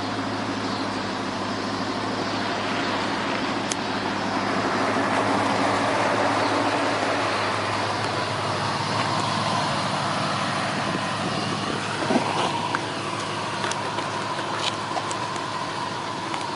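A car running steadily, with a noisy swell of road or engine sound around the middle and a few sharp clicks near the end.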